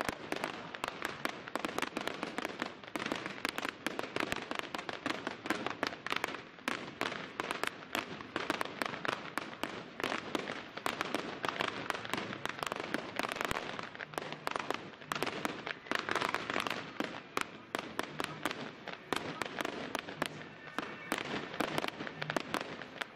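Aerial fireworks bursting in a dense, continuous barrage of bangs and crackles, with no pause between them.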